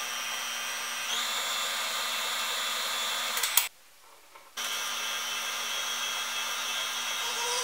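Tilt-head stand mixer's motor running with a steady whine as its dough hook kneads bread dough. The speed steps up about a second in. Near the middle there is a click and the motor stops for about a second, then starts again.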